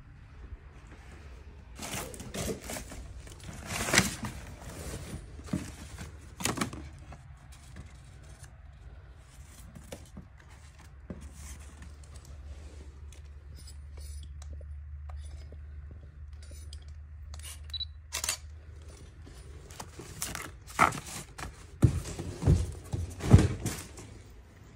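Handling noise from a handheld phone camera with scattered knocks and rustles, the loudest few knocks coming near the end, over a low steady rumble.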